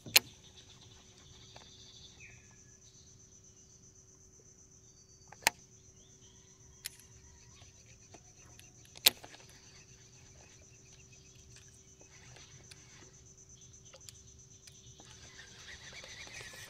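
Steady high-pitched insect chirring, like crickets, over a faint steady low hum. Three sharp loud clicks stand out: one right at the start, one about five seconds in and one about nine seconds in, with a softer click between the last two.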